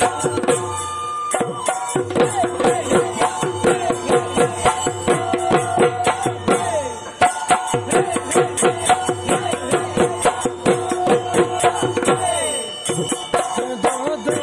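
Assamese Bihu folk music: a dhol drum beaten at a quick, even beat, with small hand cymbals clashing along and a held melodic line over the top.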